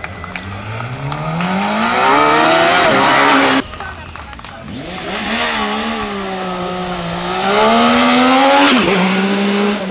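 Racing motorcycle engine accelerating hard out of a hairpin, its pitch climbing steadily. After a sudden cut, a second racing motorcycle climbs toward the listener at high revs, its pitch rising and wavering before dropping sharply about nine seconds in.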